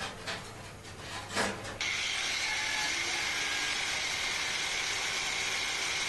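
Angle grinder cutting through a steel bar: a steady high whine with a hiss that comes in abruptly about two seconds in, after a few faint clicks and scrapes.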